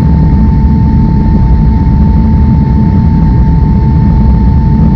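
Steady, loud rumble of simulated jet-engine and cockpit noise from an Airbus A320 full-flight simulator's sound system, with a constant high whine over it.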